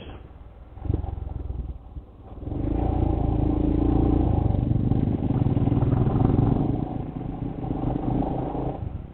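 Motorcycle engine, heard from the rider's seat, running softly at first, then opening up about two and a half seconds in and pulling steadily up a hill road before easing off near the end.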